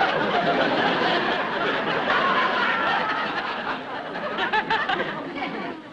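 Studio audience laughing at length, a dense wash of laughter that dies down near the end.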